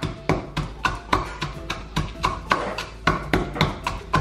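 Wooden pestle pounding garlic cloves and salt in a wooden pilón (mortar and pestle), about four dull strikes a second in a steady rhythm, mashing the garlic into a paste.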